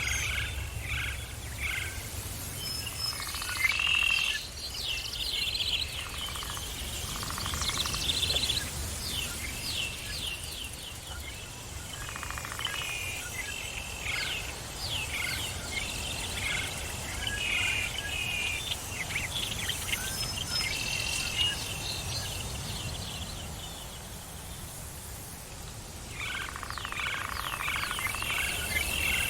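Several birds chirping and singing at once, quick overlapping calls and trills, over a low steady rumble.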